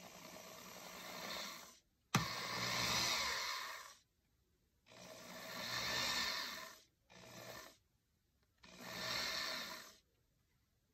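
Handheld power drill boring through a sandal's sole into the heel, run in five short bursts. Each burst spins up, runs for one to two seconds and winds down.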